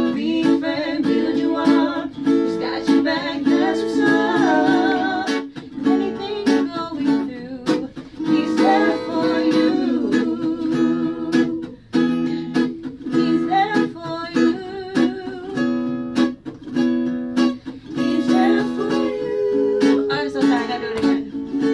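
A woman singing lead over a strummed steel-string acoustic guitar, in an unplugged performance of a soulful pop ballad; her held notes waver with vibrato and runs.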